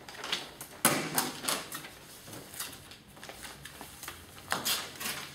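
Paper envelopes being handled and laid down on a table: dry rustles and light slaps, loudest about a second in and again near the end.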